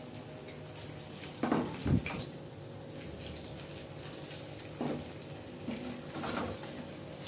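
Cauliflower pakoras frying in hot oil in a kadai, a steady sizzle, with a few knocks and scrapes of a slotted spoon against the pan as they are lifted out.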